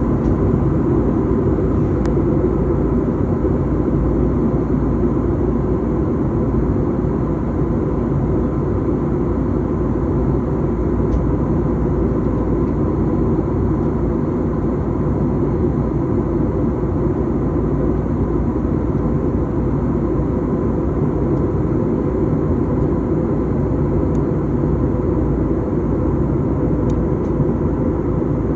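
Steady drone of airliner engines and airflow heard inside the cabin, with a constant hum running through it.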